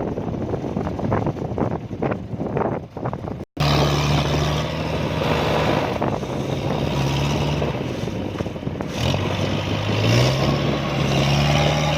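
Rough, irregular noise for the first few seconds, then after an abrupt cut the diesel engine of a tracked harvesting machine running steadily. Its speed dips about three quarters of the way through and revs back up near the end, as the machine works in deep mud.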